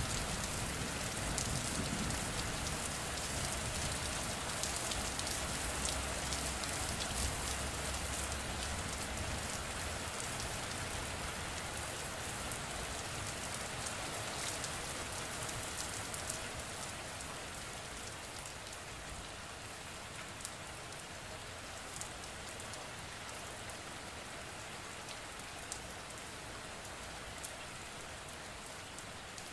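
Steady rain falling, with scattered sharp ticks of single drops. A low rumble fades out over the first several seconds, and the rain grows a little quieter through the rest.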